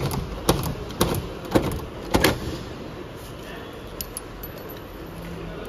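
Sharp knocks about twice a second as a number plate is fixed to the rear of a car, stopping about two and a half seconds in.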